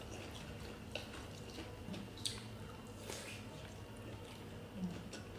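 Quiet, wet eating sounds with a few short, soft clicks spread through: chewing and sipping at a meal of beef bone soup.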